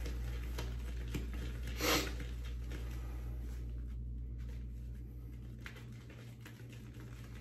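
A damp shaving brush swirled with light pressure on a shaving soap to load it: a faint, soft, rapid patter and rustle of bristles on soap, with one slightly louder stroke about two seconds in, growing fainter toward the end.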